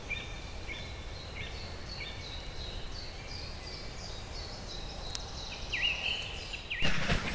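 A songbird singing a long series of short, clear, repeated whistled notes that step higher as the phrase goes on, over faint swamp-forest ambience. A brief louder burst of noise comes near the end.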